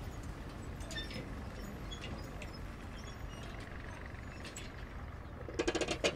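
Low steady background noise with scattered faint clicks, then a brief rapid clatter of clicks near the end that cuts off suddenly.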